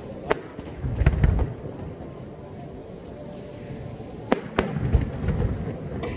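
Aerial firework shells bursting: sharp bangs followed by deep rumbling booms, once near the start with a heavy boom about a second in, then a quick cluster of three bangs and rumbling about four to five seconds in.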